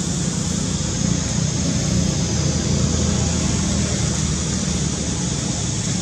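Steady outdoor rushing noise with a low rumble, even throughout and without distinct events.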